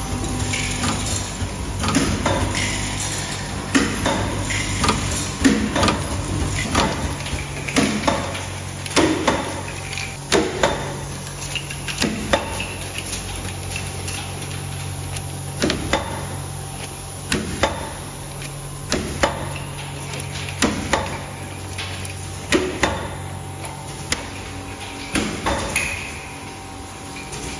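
Bottle packaging-line machinery running: a steady mechanical hum with a faint held tone over it, broken by sharp clacks and knocks at irregular intervals of roughly a second as the machines cycle.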